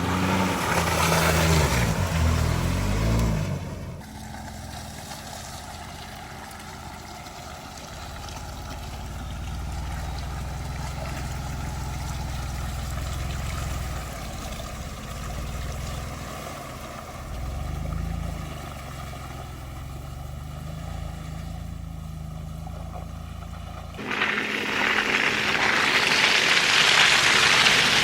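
Ford Bronco Wildtrak engine revving hard with a wavering pitch, then, after a sudden cut, running more quietly and steadily with a few swells in revs. Near the end it cuts abruptly to a loud rushing, spraying noise of tyres churning through mud and water.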